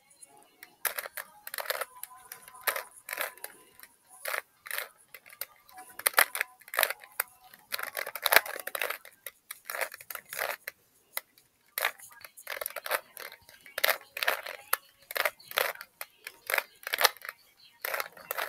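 Rubik's cube being solved quickly: rapid plastic clicks and clacks of its layers turning, in quick bursts with short pauses between, starting about a second in.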